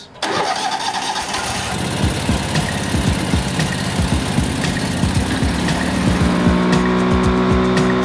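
Gas-powered wood chipper running loudly, with background music laid over it.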